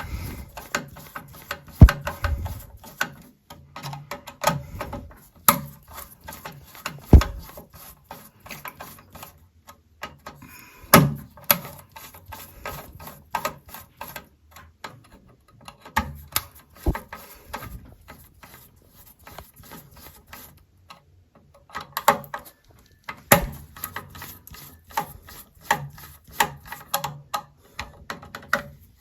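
Hand work on an alarm control panel's wiring and casing: irregular clicks, taps and rubbing from tools, cables and plastic, with several sharper knocks spread through.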